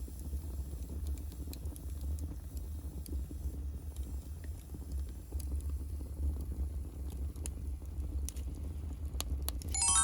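Wood fire of dead branches burning in a firebox, crackling with scattered sharp pops over a steady low rumble.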